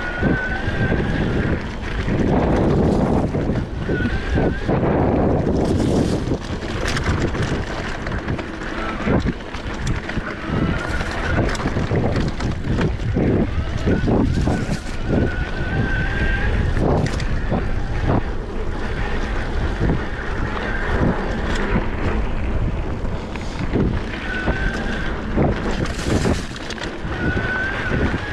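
Wind buffeting the microphone of a mountain bike riding fast down a dirt singletrack, with the tyres rolling over the dirt and the bike rattling and knocking over bumps, plus a few faint short squeaks.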